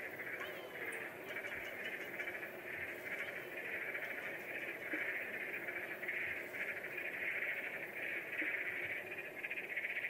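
Night chorus of frogs: a dense, steady, high trilling that swells and eases about once a second.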